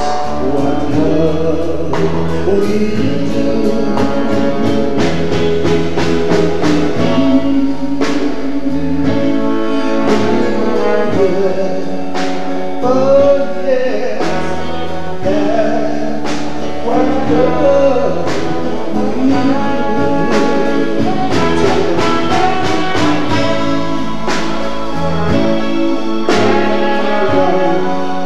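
Live reggae band music with brass instruments over a steady beat.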